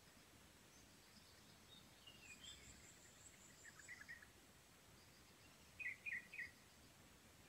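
Birds calling faintly over quiet background noise: a thin high trill and a few falling chirps, then three quick, louder chirps near the end.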